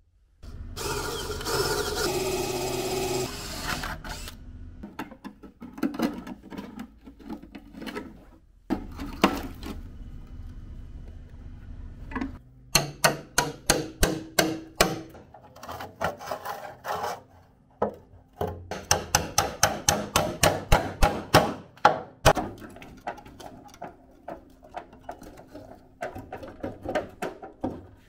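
Metalwork on a rusted steel Land Rover bulkhead footwell panel as it is taken off: a few seconds of steady mechanical whirring near the start, then scattered knocks and two quick runs of sharp metallic knocks and rattles, several a second.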